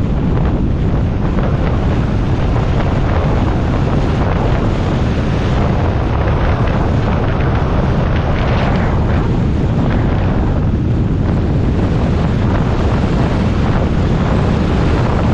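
Loud, steady wind buffeting the microphone over a constant low rumble.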